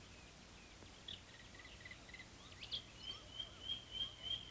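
Faint birds chirping in short high calls, with a thin steady high note held through the last second and a half.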